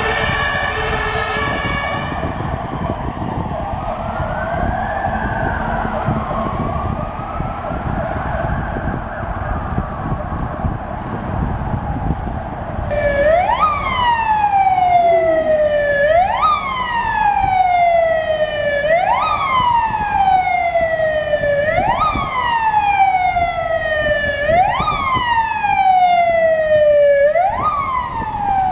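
Fire engine siren on an emergency run. A steady multi-tone horn sounds for the first couple of seconds, then the siren sweeps slowly up and down. About halfway through it switches to fast, louder sweeps, each rising quickly and falling more slowly, about one every two seconds, over traffic noise as the truck comes near.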